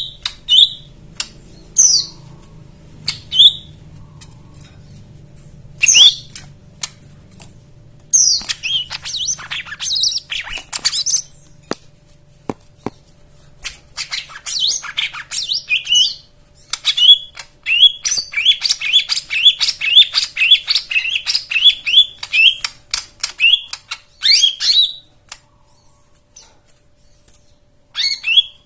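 A cucak ijo mini (lesser green leafbird) singing a varied, chattering song of sharp chirps, squeaks and mimicked phrases. About halfway through comes a long run of fast repeated notes, then the song stops for a few seconds before a short burst near the end.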